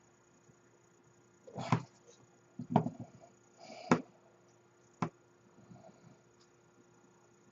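Small plastic model-kit parts and tools being handled on a workbench: four separate short knocks and clicks about a second apart, over a faint steady hum.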